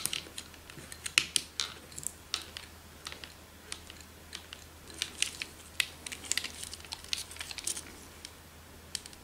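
Flat screwdriver tip working against the plastic end of an HP CF219A imaging drum unit, pushing the drum's retaining pin out bit by bit: a string of small, irregular plastic clicks.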